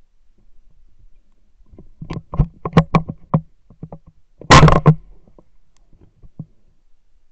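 A Fabarm Axis shotgun firing, one very loud blast about four and a half seconds in, picked up by a camera mounted on the gun. It follows a couple of seconds of sharp knocks and clicks as the gun is handled and swung.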